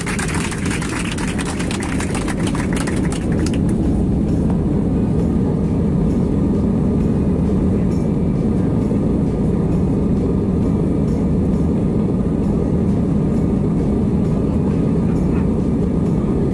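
Steady jet-engine and airflow noise inside the cabin of an Airbus airliner in flight. A rapid patter of sharp clicks runs over it for the first three and a half seconds, then stops.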